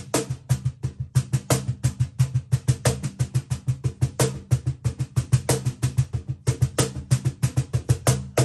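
Kala wooden cajon played by hand: a rapid, steady run of low bass thumps and sharper slaps on the front face, several strikes a second.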